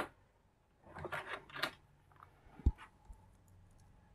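Handling noises: a click, then a few short scraping rasps about a second in, and a single low thump a little later.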